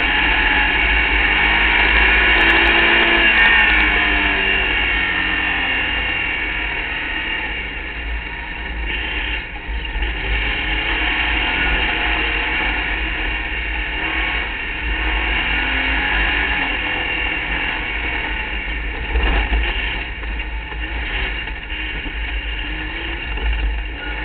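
Open-wheel hill-climb race car's engine running hard at high revs, heard onboard over a steady low rumble of wind and gravel; its pitch sinks over the first few seconds and climbs again midway, with a sharp knock about two-thirds through.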